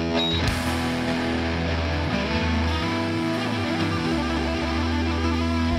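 Hardcore band playing live: electric guitars, bass guitar and drums playing the band's intro song, with low chords held.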